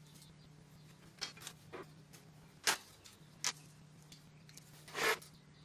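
Light clicks and taps of a wooden folding rule and a metal marking tool handled against a steel plate, a few separate knocks, then a short scrape about five seconds in, over a faint steady low hum.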